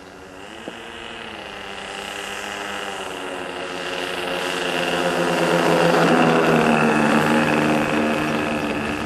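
Twin-engine radio-controlled scale model of a B-25J Mitchell bomber flying past, its engines and propellers giving a steady pitched drone that grows louder to a peak about six seconds in, then eases slightly. A short click comes less than a second in.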